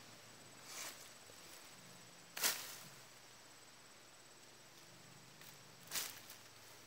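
Leopard cat hissing from the undergrowth in three short, sharp bursts, the middle one loudest, over a faint low hum. It is a threat display from an animal hidden in the bushes.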